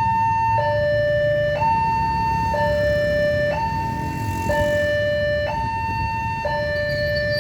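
Railway level-crossing warning siren sounding a two-tone alternation, a higher and a lower tone each held about a second, over a steady low rumble. It is the signal that a train is approaching and the crossing is closing.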